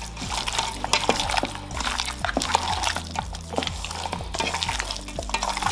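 Goat meat being mixed by hand in a yogurt-and-spice marinade: wet, irregular squishing with many short clicks.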